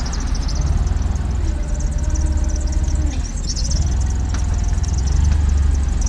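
Clark propane forklift's engine running steadily with a deep hum while it sets pallets onto a flatbed truck. A faint whine joins in for about a second, two seconds in.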